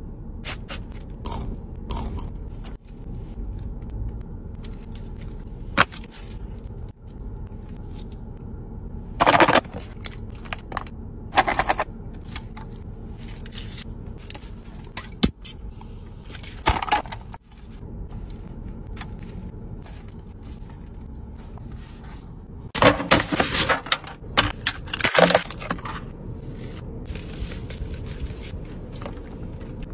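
Close-up food-handling sounds: hands scraping and picking food off a metal serving platter, with faint clicks throughout. Several short, louder crackly bursts come in the middle and about three-quarters of the way through.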